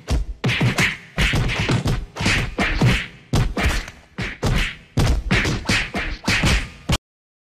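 Punch sound effects: a rapid run of sharp thwacks, about three to four hits a second, each a hard slap with a low thud, cutting off suddenly to silence near the end.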